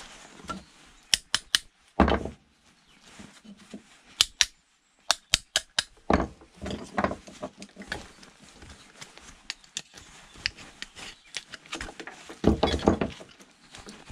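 Metal parts of a small electric motor being pulled apart by hand with pliers on a wooden workbench: many sharp clicks, clinks and knocks, with heavier thumps about two seconds in and again near the end.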